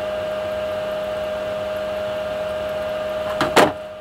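A steady machine-like drone with a constant hum runs throughout. About three and a half seconds in comes a short, loud double snap, as hand cutters bite through the outer sheath of a double-sheathed Cat 6 UTP cable.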